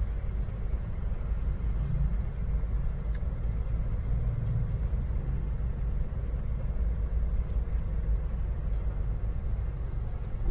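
Steady low rumble of a car's engine and tyres heard from inside the cabin as it drives slowly along a road.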